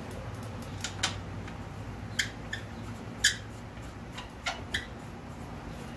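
A handful of sharp, irregular clicks and taps of parts being handled in a car's engine bay, the loudest a little past three seconds in.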